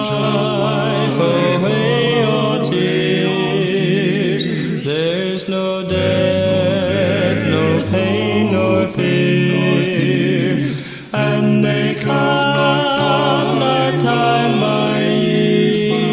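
A cappella gospel quartet singing slow, sustained chords in close harmony, with no instruments. There is a brief break between phrases about two-thirds of the way through.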